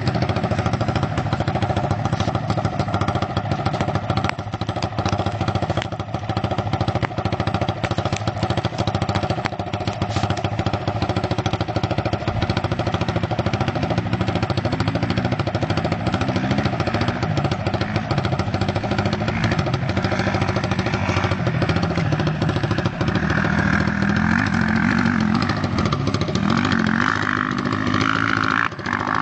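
Small motorcycle engines running, their pitch rising and falling as they are revved, with the revs climbing toward the end.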